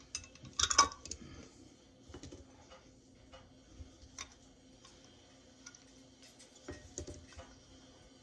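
Metal canning lids and bands clicking and clinking on small glass mason jars as they are handled and set on. A loud cluster of clicks comes about a second in, then scattered light taps.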